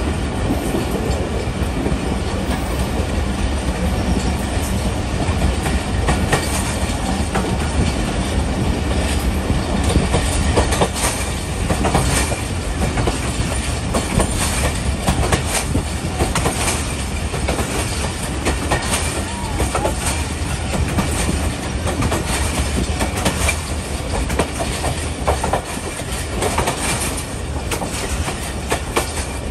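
Pak Business Express passenger train running along the line, heard from aboard: a steady rumble of the coach with the wheels clicking and clattering over the rail joints.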